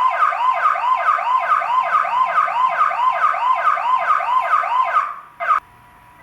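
Electronic warbling alarm tone from a battery-powered motion-sensor chime unit: a rapid up-and-down sweep repeating about two and a half times a second. It stops about five seconds in, followed by one short blip.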